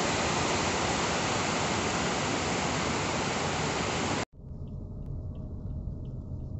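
Heavy rain downpour: a loud, dense, steady hiss that cuts off abruptly about four seconds in. It gives way to the low rumble of a car interior in traffic, with faint ticks about twice a second.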